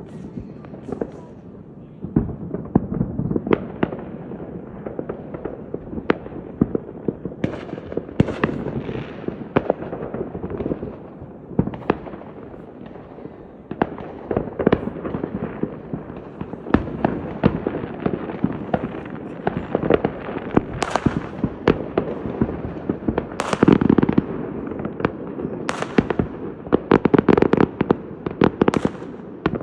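Fireworks display: a continuous run of firework bursts, booms and crackling, growing denser with rapid salvos of cracks toward the end.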